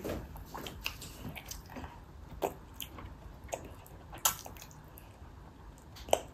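A toddler chewing a mouthful of braised chicken, with small wet mouth smacks coming every fraction of a second and a few sharper clicks, the loudest about four seconds in and again near the end.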